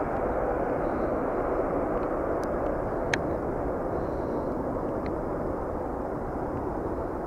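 Boeing 787 Dreamliner's Rolls-Royce Trent 1000 turbofans at takeoff climb thrust, heard from behind as the airliner climbs away: a steady low rumble with hiss that slowly fades. A faint click about three seconds in.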